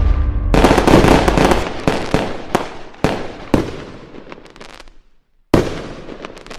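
Fireworks going off: a dense volley of bangs and crackling that fades away, with a few separate sharp cracks about a second apart. Near the end the sound breaks off briefly, then a fresh loud burst starts and dies away.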